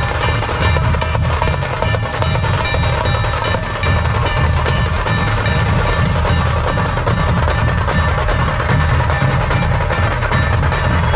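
Dhol drums of a Ganpati procession band playing loudly and without a break, a dense rolling drum beat.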